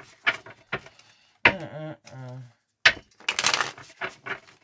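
A deck of tarot cards being shuffled by hand: a few sharp card clicks, then a dense, crackling riffle in the second half, with a short vocal sound about halfway through.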